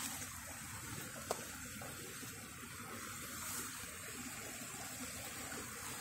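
Shallow creek water flowing steadily, with a single faint click about a second in.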